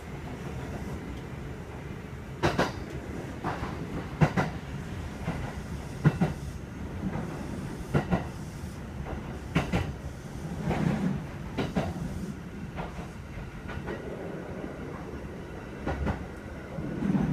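Kintetsu 2430 series electric train running, heard inside the passenger car: a steady low rumble with a series of sharp clacks from the wheels passing over rail joints, starting a couple of seconds in.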